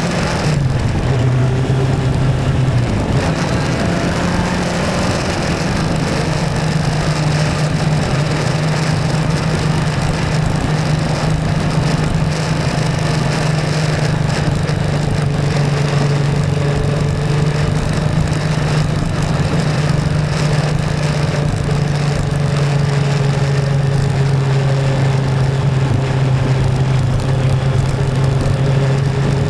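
Motorcycle engine on a test ride after repair, finishing a rising rev about a second in and then running at a steady, even speed.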